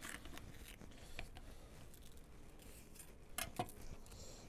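Faint snaps and crackles of a red pointed pepper being pulled apart by gloved hands, with two short knife strokes through it on a wooden cutting board near the end.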